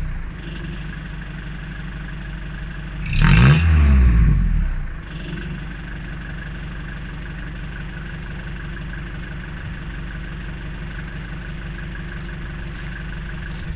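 Mercedes T1 208D van's diesel engine idling through a newly fitted budget exhaust. It is revved once about three seconds in, the pitch rising and falling over about a second and a half, then settles back to a steady idle. The exhaust sounds loud and "fruity" for a standard system, which the owner takes as a sign that the silencer has no baffles.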